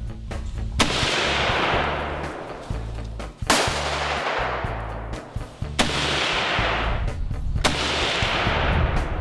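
Four rifle shots from a scoped hunting rifle being sighted in, about two seconds apart. Each is a sharp crack followed by a long fading echo, over background music.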